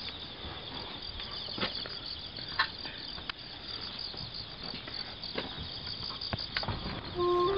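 A dense chorus of insects chirping in fast pulses, typical of crickets, with a few light clicks. Near the end a steady low musical tone begins.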